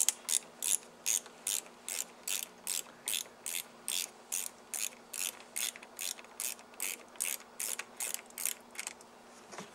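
10 mm ratchet wrench clicking in evenly spaced strokes, about two and a half a second, as the nut on a car battery's positive terminal clamp is loosened; the clicking stops near the end.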